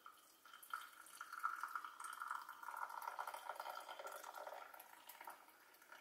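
Hot water pouring steadily from a kettle into a glass mug. It starts about half a second in.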